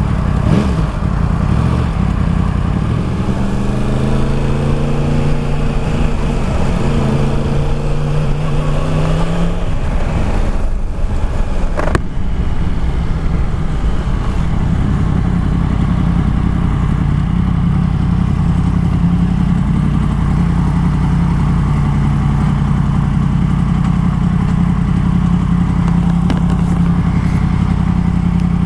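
Yamaha MT-10's crossplane inline-four engine through an Akrapovic exhaust, heard from the rider's seat. It pulls with a rising pitch for several seconds, drops off about ten seconds in, then runs at a steady low note as the bike rolls slowly and comes to a stop at idle near the end.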